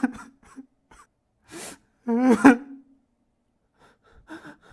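A man's exaggerated crying: short gasping breaths, then a loud wavering sob about two seconds in, and a few short sobs near the end.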